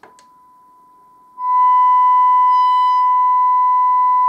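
Steady 1 kHz test tone from a signal generator, played through a bookshelf speaker by a small BC337/BC327 push-pull transistor amplifier. A click, the tone faint at first, then loud about a second and a half in, with faint higher overtones above it.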